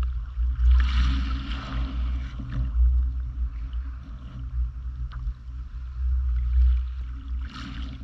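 Wind rumbling on the microphone, with small waves washing over a pebble shore. The wash swells into a louder hiss about a second in and again near the end.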